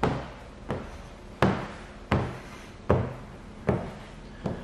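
A steady series of knocks, about one every three quarters of a second, seven in all, each dying away quickly: a squeegee stroked over wet paint protection film, thumping the sheet-metal truck hood with each stroke.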